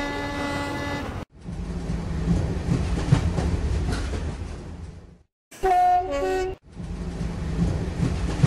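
Diesel locomotive sound effects. A steady horn blast cuts off after about a second, then an engine rumbles and fades away. Near the middle comes a short two-note horn, and the engine rumble returns near the end.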